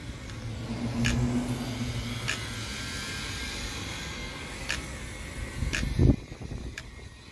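MST RMX 2.0 electric RC drift car running, its motor whining over a hiss, with several sharp clicks and a low knock about six seconds in.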